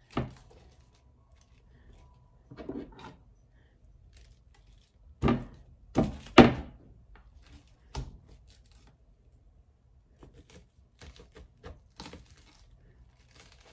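Head of cabbage being cut with a kitchen knife on a wooden cutting board: a few separate thunks of the cabbage and blade against the board, the loudest three close together about five to six and a half seconds in, then light clicks and crunches of the blade in the cabbage.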